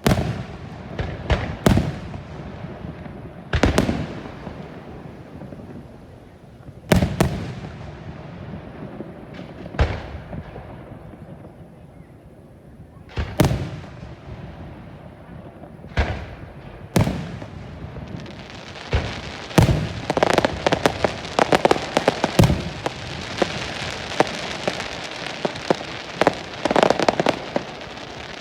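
Fireworks: single aerial shell bursts a few seconds apart, each a sharp bang with an echoing tail, then about two-thirds of the way in a dense run of crackling and rapid bangs.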